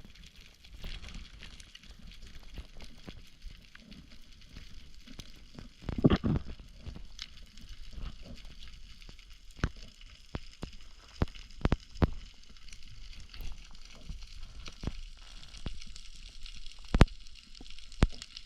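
Underwater sound picked up by an action camera in its housing during a spearfishing dive: a faint crackling hiss with scattered sharp clicks and knocks, and a louder rushing burst lasting about half a second about six seconds in.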